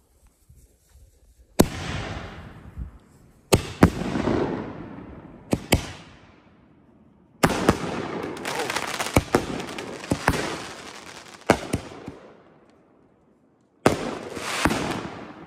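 Aerial fireworks bursting overhead: about ten sharp bangs, spaced a second or two apart, each followed by a fading crackle of burning stars. A brief lull comes near the end before two more bursts.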